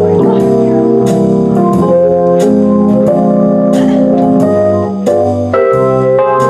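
Yamaha digital keyboard played with both hands in a jazz improvisation: held chords change every half second to a second or so, with single notes picked out above them.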